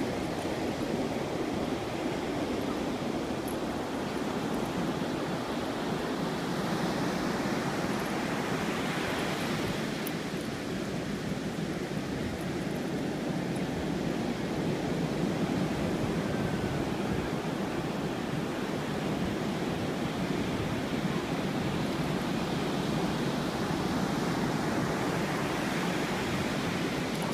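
Pacific surf breaking and washing up the beach: a steady rush that swells louder twice, with wind rumble on the microphone.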